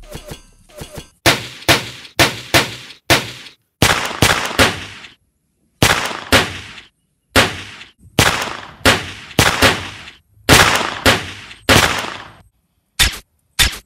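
Gunfire in a shootout: a few fainter pops in the first second, then about twenty sharp rifle shots, singly and in quick pairs and triples, each trailing off briefly.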